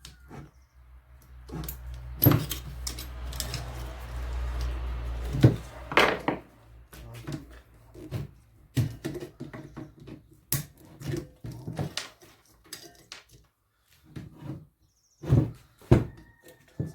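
Hands and tools taking apart an old washing-machine electric motor: irregular knocks, clinks and clunks of metal parts. About two seconds in there is a few-second stretch of scraping and rustling.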